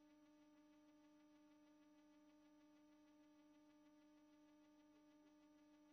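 Near silence, with a faint steady hum.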